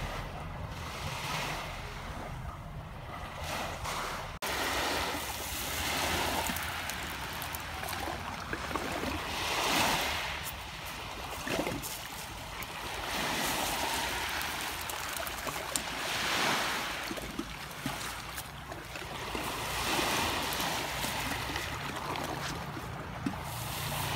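Small sea waves breaking and washing up a pebble beach, swelling every few seconds, with a low wind rumble on the microphone.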